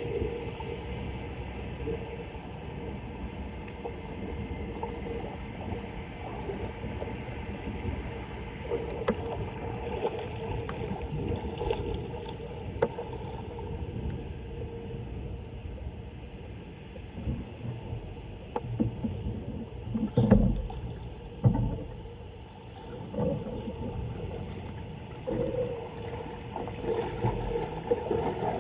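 Floodwater rushing and gurgling into a street storm drain, a steady low rush with a hollow tone. A few knocks and splashes come about two-thirds of the way through.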